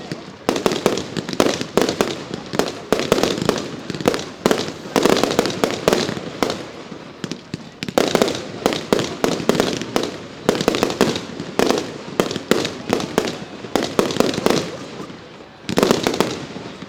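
Professional fireworks display: a dense barrage of sharp bangs, several a second. It eases briefly near the end before another loud volley.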